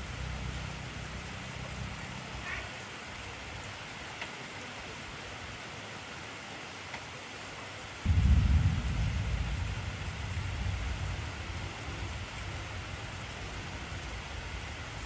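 Heavy rain falling steadily as an even hiss. About eight seconds in, a sudden low clap of thunder breaks out and rumbles away over the next few seconds.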